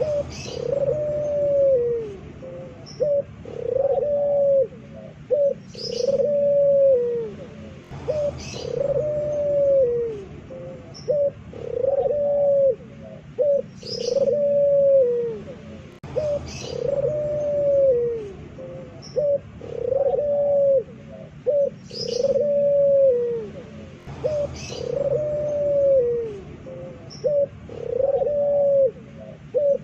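Puter pelung, a Barbary dove kept for its voice, cooing loudly over and over: drawn-out arched notes that fall away at the end, about one a second, in a phrase that repeats every eight seconds or so. Short high chirps from another small bird come every few seconds.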